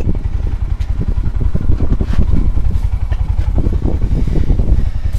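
Arctic Cat Prowler 700 HDX side-by-side under way, its single-cylinder engine running with a steady low rumble.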